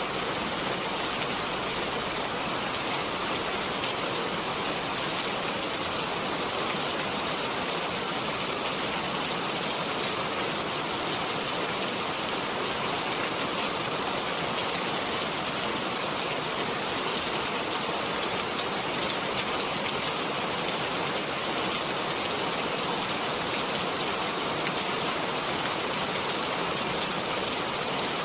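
Steady rain falling, an even hiss of many drops landing on a surface, unchanging throughout.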